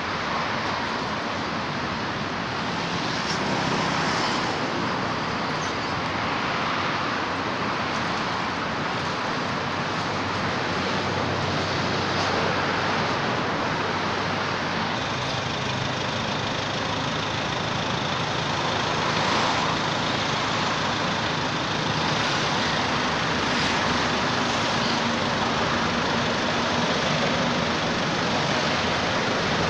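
Steady road traffic noise, swelling a few times.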